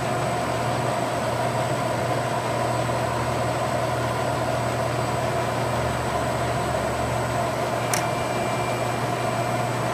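Landis LCHH plain hydraulic cylindrical grinder running under power, a steady machine hum from its grinding-wheel spindle, motors and hydraulic pump. One sharp click sounds about eight seconds in.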